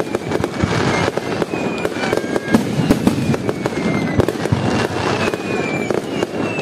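Aerial fireworks display going off in rapid, continuous succession: a dense stream of bangs and crackling from glitter shells. Several thin whistles glide down in pitch over the top.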